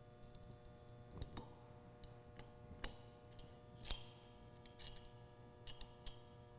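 Faint metallic clicks and taps of stainless steel tubing and its tube fittings being handled and fitted together by hand, the sharpest click about four seconds in.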